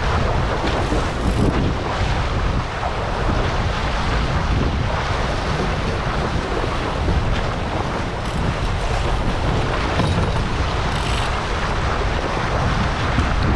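Wind buffeting the GoPro's microphone over the rush and hiss of water along a Prindle 19 catamaran's hulls sailing at speed, about 11 to 14 mph. Steady, with no single event standing out.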